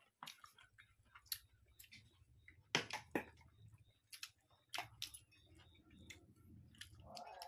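Close-up eating sounds: scattered wet mouth clicks and smacks from people chewing pork curry and rice, with two sharper clicks close together about three seconds in.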